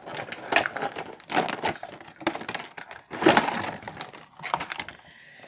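Toy packaging being handled and pulled open by hand: irregular crinkling and crackling with sharp snaps, loudest about three seconds in, then dying down.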